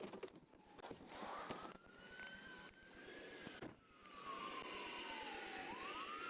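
Siren wailing slowly, its pitch rising, falling and rising again, over a steady rush of noise, with a few short knocks.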